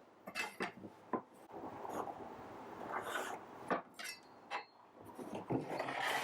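Wooden workpieces and tools being handled on a workbench: scattered knocks and clicks with scraping and rubbing between them, and no saw running.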